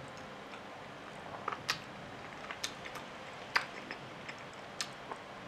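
Close-up chewing of a mouthful of hamburger steak: quiet mouth sounds broken by about half a dozen short sharp wet clicks and smacks, scattered irregularly, two of them louder.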